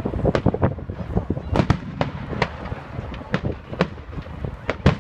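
Fireworks going off overhead: an uneven run of sharp bangs and cracks, about three a second, with a louder bang near the end.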